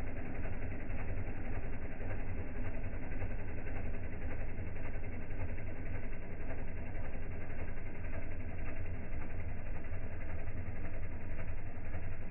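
International Harvester Farmall 966 tractor engine running steadily, a low, even drone, as it pulls an offset disc harrow through the soil.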